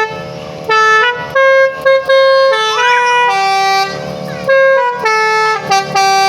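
Pickup truck's telolet Basuri musical horn playing a tune: a string of loud held notes, each a fraction of a second long with short breaks between, the pitch stepping up and down.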